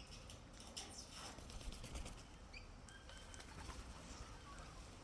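Birds fluttering their wings in a quick flurry of soft flaps, with a few short high chirps.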